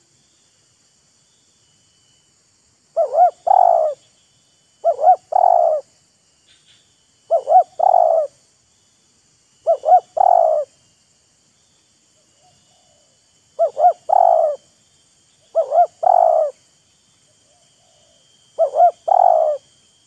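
Spotted dove cooing: seven calls a couple of seconds apart, each two short quick notes followed by a longer note.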